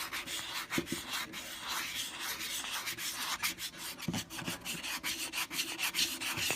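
Sandpaper rubbed by hand over a composition doll's surface and epoxy putty repair, worked in small circles: a continuous, rapid scratchy rubbing, with a few soft knocks from handling about a second in and around four seconds in.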